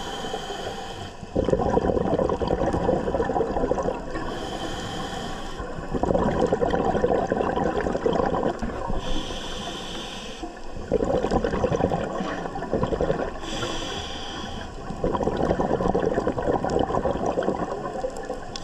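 Scuba diver breathing through an open-circuit regulator underwater. Each breath is a short hissing inhale followed by a longer, louder rush of exhaled bubbles, four breaths at an even pace, about one every four to five seconds.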